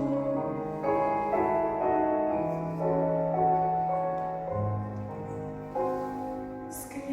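Music: a keyboard instrument playing held notes and chords that change every second or so, with no singing in this passage.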